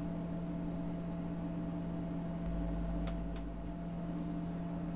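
Steady background hum with a few fixed low tones over an even hiss, with a few faint clicks about three seconds in.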